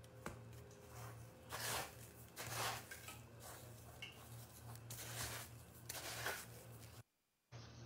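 Chicken strips being pressed and tossed by a gloved hand in a plastic bowl of dry breadcrumbs, making crumbly rustling scrapes in several short bursts over a steady low hum. The sound cuts out for about half a second near the end.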